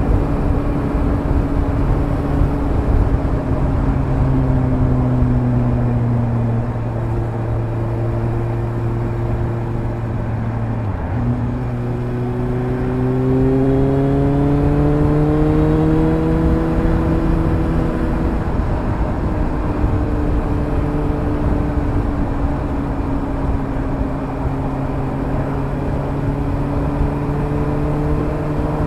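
Suzuki GSR750's inline-four engine through a Fuel slip-on exhaust with the dB-killer fitted, heard from the moving bike over wind and road rush. The engine note eases off over the first few seconds and dips briefly about eleven seconds in. It then rises for several seconds as the bike accelerates, before dropping back to a steady cruise.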